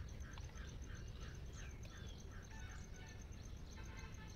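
Birds calling: one bird repeats short, falling chirps about three times a second, and a different, fuller call comes in near the end. Under them run a steady high-pitched pulsing tone and low background rumble.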